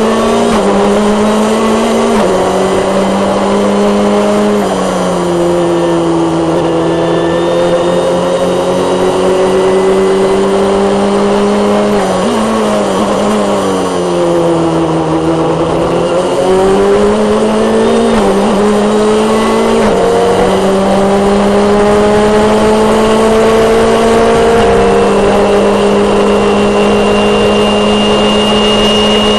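Formula Palmer Audi single-seater's turbocharged four-cylinder engine at racing speed, heard loud from the onboard camera. The engine note steps down with upshifts a couple of seconds in, falls away under braking about halfway through, then climbs again through the gears.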